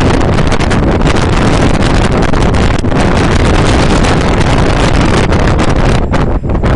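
Strong wind buffeting the microphone on a moving ship's deck: a loud, gusting rumble and rush, easing briefly near the end.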